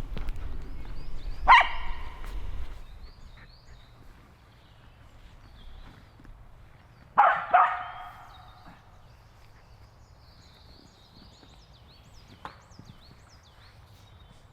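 A dog barking: one short bark about a second and a half in, then two barks in quick succession about seven seconds in.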